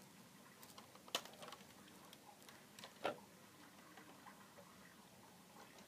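Two short plastic clicks, about two seconds apart, from a Nerf Zombie Strike Sidestrike blaster being handled, over near silence.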